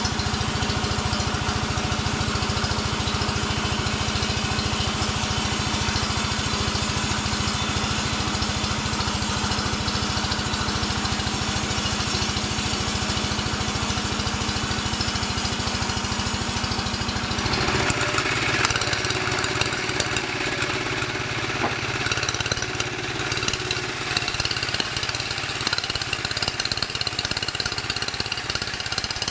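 Sawmill machinery driven by an engine, running steadily with a fast low pulse. A little over halfway through the steady tone falls away and a rougher, higher sound takes over.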